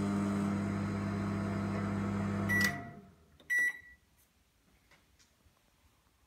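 Amica AMM25BI built-in microwave running on a defrost-by-time programme with a steady hum. About two and a half seconds in it beeps and the hum stops, and a second short beep follows about a second later.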